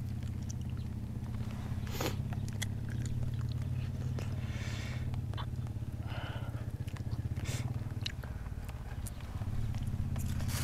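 Scattered sharp crunches and clicks of people biting and chewing a dry snack, over a steady low hum.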